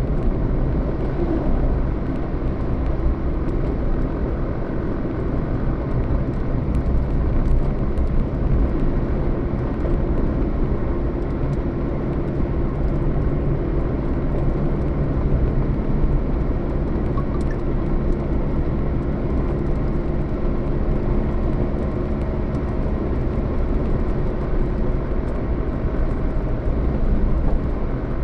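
Motor vehicle driving steadily along a road: continuous low engine hum with road and tyre noise.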